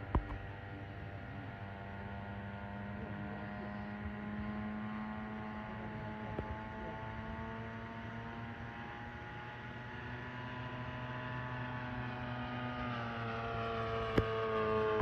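Radio-controlled scale warbird model of a J2M Raiden fighter flying overhead, its propeller motor giving a steady droning note whose pitch drifts slowly and grows louder near the end as the plane comes closer. A couple of short, sharp clicks, one just after the start and one near the end.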